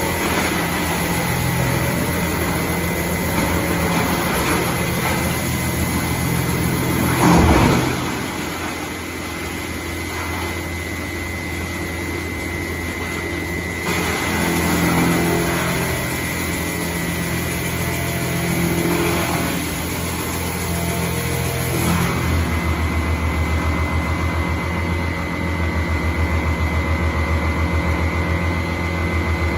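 Drum wood chipper running: a steady machine drone with a low hum and a constant high whine, a brief loud surge about seven seconds in, and the sound shifting at about 14 and 22 seconds.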